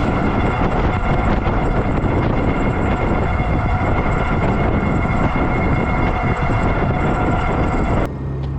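Wind rushing over an action camera's microphone while riding an electric bike at speed, with a steady whine from the motor running through it. The noise stops abruptly near the end.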